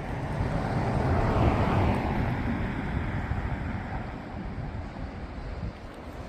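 Sea waves breaking on the shore: one wave swells to its loudest about one to two seconds in and then washes out and fades, with wind rumbling on the microphone underneath.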